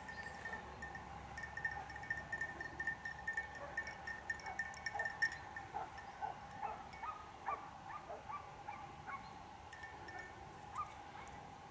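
A small metal bell jingling in quick pulses for about the first five seconds over a steady ringing tone. From about halfway, a string of short, faint animal calls.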